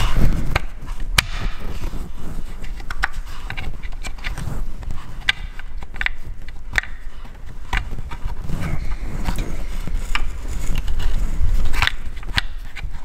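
Irregular clicks, taps and scrapes of a tool and hands working in the sheave slot of an aluminium masthead, prising at the stuck sheave and its bolt.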